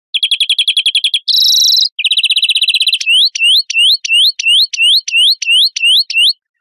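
European greenfinch song: a fast trill, a short buzzy note, a second, lower trill, then about eleven rising whistled notes at roughly three a second.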